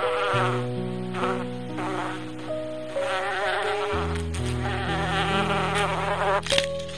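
Insect buzzing, coming and going in waves, over background music with held notes and a bass line.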